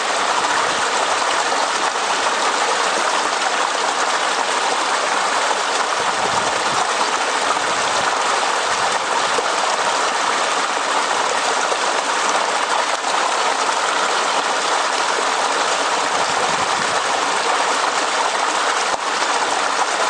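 Highland stream running over rocks: a steady, even rush of flowing water.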